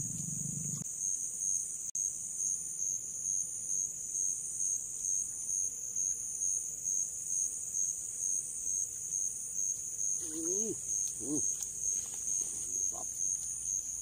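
Insects chirping in a steady high-pitched pulsing trill, about three pulses every two seconds.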